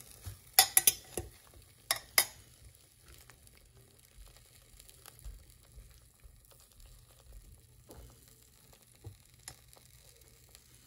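Metal fork clinking and scraping against a slow-cooker pot while pieces of squirrel meat are turned in it: a cluster of sharp clinks in the first couple of seconds, then only faint scattered taps.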